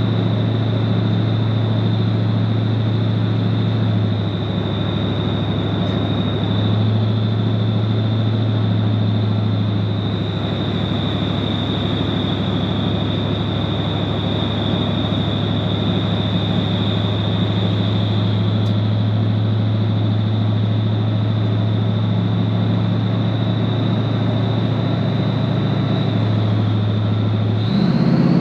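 Vehicle engine running at a steady cruising speed, a constant drone with a high whine above it, stepping slightly in pitch a few times; near the end it rises in pitch and gets louder as the engine speeds up.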